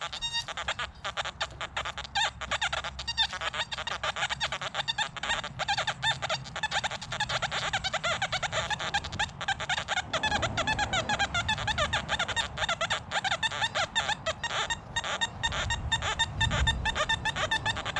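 XP Deus metal detector giving a rapid, continuous chatter of short beeps and grunts as its coil sweeps over iron-littered ground.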